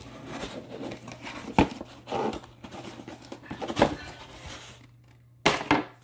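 A cardboard model-kit box being opened and handled: cardboard rubbing and rustling, with sharp knocks and taps about a second and a half in, near four seconds, and twice close to the end.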